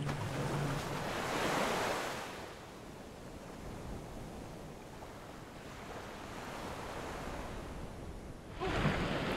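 Water rushing and swishing along a sailboat's hull under way, with some wind on the microphone. The rush swells a second or two in, eases to a softer wash, then grows suddenly louder near the end.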